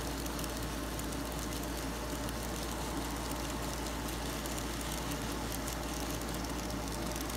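N scale model freight train running on Kato Unitrack: a steady rolling noise from the cars' wheels on the track, over a constant low hum, with faint ticking.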